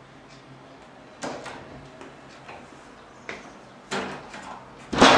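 Kitchen cupboard doors and drawers being handled: a few separate knocks and clicks, the loudest a bang with a rattle near the end.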